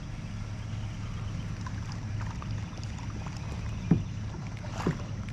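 Ambience on a fishing kayak: a steady low hum over a faint even hiss, with two brief short sounds about four and five seconds in.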